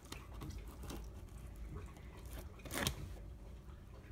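Smoked beef plate rib being pulled and torn away from the rack by hand: soft, wet tearing and squishing of meat, with one louder brief noise nearly three seconds in.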